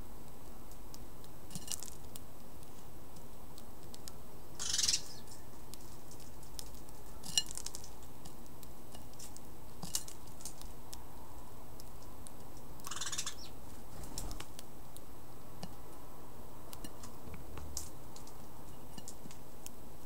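Sparrows pecking at birdseed in a saucer: scattered light clicks and ticks of beaks on seed and dish, with a couple of brief scratchy bursts about 5 and 13 seconds in.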